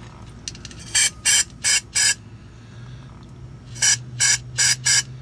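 Aerosol can of carburetor cleaner sprayed through a thin straw tube in short hisses: four quick bursts, a pause of about two seconds, then four more. The spray is flushing sediment out of a diesel fuel/water separator's drain plug hole.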